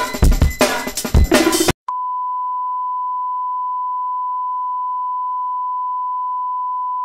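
Drum-heavy background music stops abruptly about two seconds in. After a brief gap, a single steady electronic beep tone sounds and holds, unchanging.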